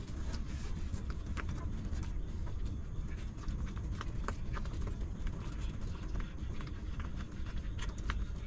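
Newborn puppies suckling at their mother's teats: irregular wet smacking and sucking clicks, several a second, over a steady low rumble.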